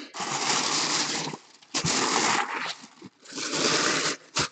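Red tissue paper rustling as it is pulled open by hand, in three long crinkling bursts, with a short sharp tap near the end.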